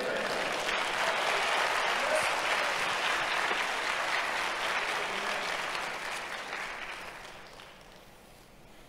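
Congregation applauding, the clapping dying away over the last two seconds or so.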